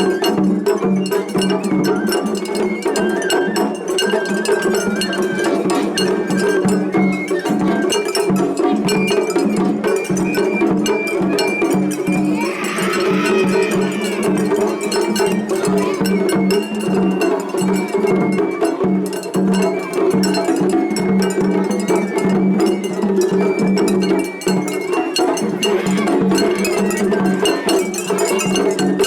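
Festival hayashi ensembles playing over each other in a competing clash: continuous rapid clanging of small hand gongs (atarigane) with drums and thin, high bamboo flute lines.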